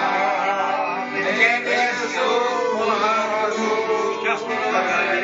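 Piano accordion playing a tune while several voices sing along.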